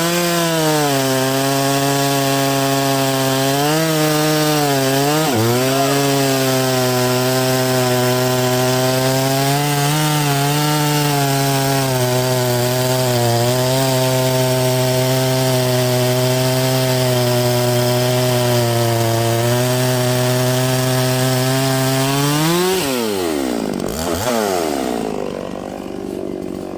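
Chainsaw engine running at high revs while cutting wood, its pitch dipping briefly under load a few times. About 23 seconds in it comes off the throttle, gives a short rev, and drops to a lower idle.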